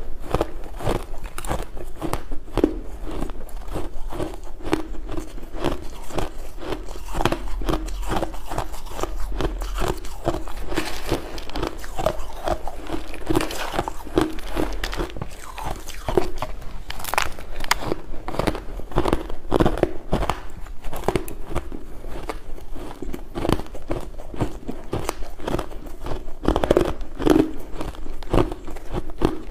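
Close-up crunching and chewing of mouthfuls of crushed, coloured shaved ice, a dense run of irregular crisp crunches.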